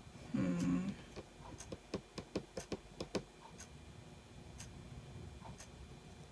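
A short hummed "hmm", then a quick run of about eight light clicks over two seconds and a few scattered ticks after, from handling hand-embroidery supplies.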